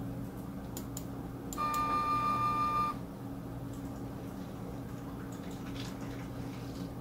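Stepper motor, driven at 300 Hz, running for about a second and a half with a steady high whine and a ladder of overtones, stopping abruptly. A few sharp clicks come just before it starts, and a steady low hum runs underneath.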